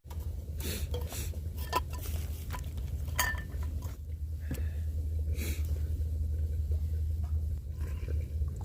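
Metal camp cookware being handled: scattered clinks and clatters, with a couple of short metallic rings, over a steady low rumble.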